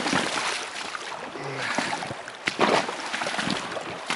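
Footsteps in rubber galoshes splashing and sloshing through a shallow, stony river ford, over the steady rush of the running water, with a few louder splashes a little after halfway.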